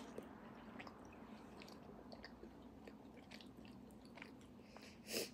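Faint close-up chewing of an empanada: soft wet mouth clicks and smacks, with one short louder noise near the end.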